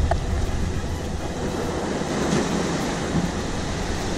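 Ocean surf breaking on a sandy beach and against the rocks: a steady rushing wash with a low rumble underneath.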